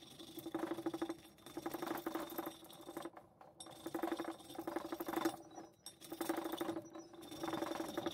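A hacksaw blade held in both hands, its teeth scraped back and forth across the painted metal body of a fire extinguisher, in rasping strokes about a second long with short pauses between.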